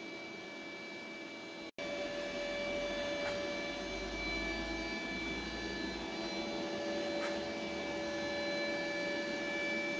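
A steady machine hum with constant high whining tones, broken by a very short gap about two seconds in.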